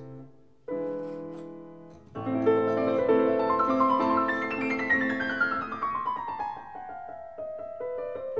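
Background piano music: chords struck about a second and two seconds in, then a run of notes falling in pitch.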